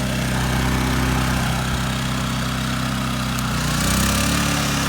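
Champion 3400-watt dual fuel inverter generator running steadily under a heavy load from a hair dryer on high and a hair straightener. The engine note shifts and grows slightly louder about four seconds in.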